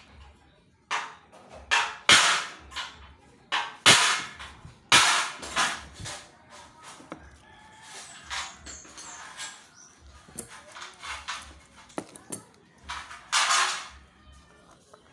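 Irregular short bursts of scraping or hissing noise with a few sharp knocks, from hands-on work with aluminium window parts.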